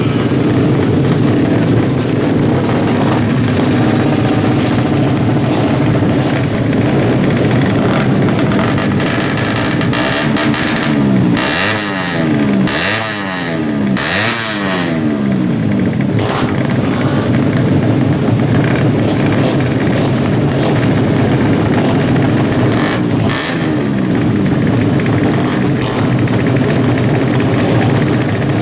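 Drag-racing motorcycle engines running loud and revving continuously. About halfway through, a bike accelerates hard through the gears, its pitch climbing and dropping back three times as it upshifts. A shorter run-up comes about two-thirds of the way in.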